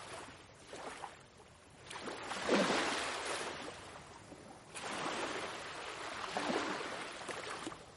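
Ocean waves washing in, in slow swells that build and fade over two to three seconds each.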